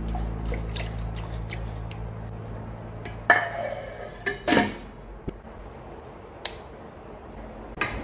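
Steel lid being set onto a rice cooker's metal inner pot: one loud ringing clatter about three seconds in, then two lighter knocks and a few small taps.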